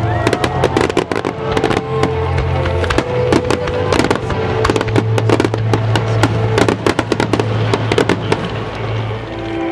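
A dense barrage of aerial fireworks: rapid bangs and crackling, several a second, over a music soundtrack. The bursts thin out near the end while the music continues.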